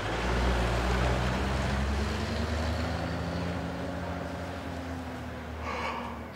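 WWII-era military jeep's engine running as it drives off, a low steady hum that slowly fades away. A short burst of higher sound comes near the end.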